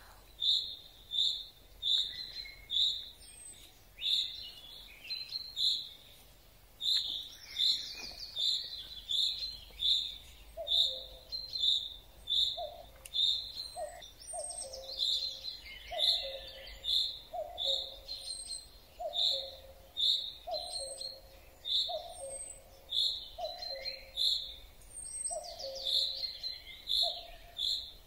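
Common chaffinch repeating a short high call note about every half second to second, an unusual chaffinch call that is easily taken for another species. From about ten seconds in, another bird's low two-note call repeats in the background about once a second.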